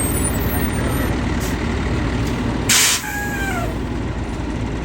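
Fire engine running with a steady low rumble, with a short loud hiss of its air brakes about three seconds in, followed by a brief falling squeal.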